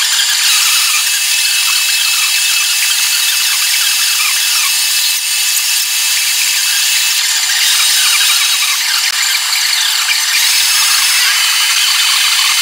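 Half-round bastard file rasping across a cast aluminum handwheel, filing off the casting flash.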